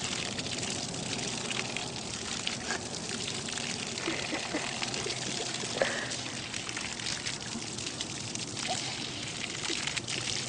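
Steady trickling, running water, with a few brief faint squeaks over it.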